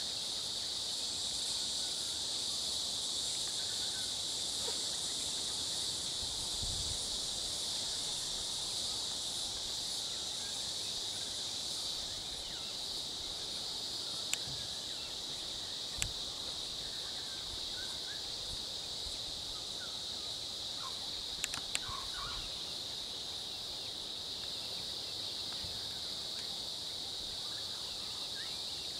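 Steady high-pitched insect chorus from the roadside forest, with a few faint clicks partway through.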